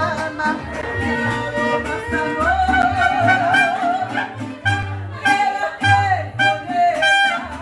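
Mariachi band playing live: violins carrying a melody with vibrato over rhythmically strummed guitars and a deep pulsing bass line.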